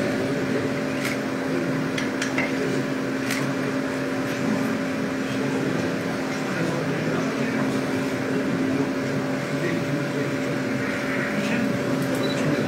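Woodworking machinery running in a steady hum with a constant tone, from a CNC wood lathe and its dust extraction unit, with a few light clicks about one, two and three seconds in and again near the end.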